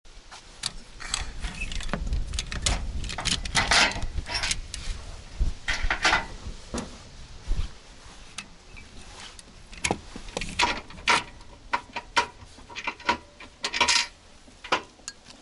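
Metal ratchet buckle of a tie-down strap holding the boat to its trailer clicking and clacking as it is worked loose, in irregular bursts of clicks. A low rumble runs under the first half.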